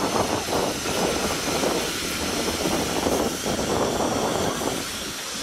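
Steam tank engine dressed as Thomas, a steady rumble with a hiss of steam, wind buffeting the microphone.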